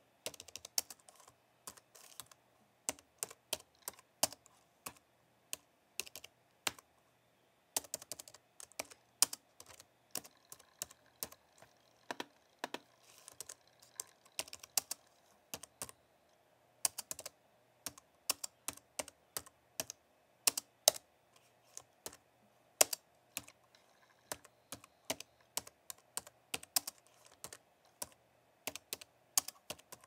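Typing on a slim, low-profile white keyboard: quick, irregular key clicks in bursts, broken by short pauses, one of about a second roughly a quarter of the way through.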